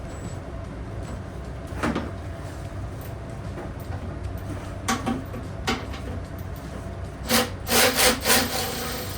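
Hand tools scraping and knocking on a partly stripped engine during teardown: a few single scrapes, then a cluster of louder rasping strokes near the end, over a steady low hum.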